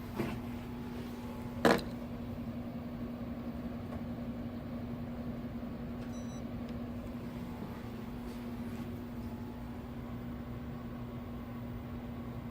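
Steady machine hum on one low tone, with two short knocks about a second and a half apart, the second louder.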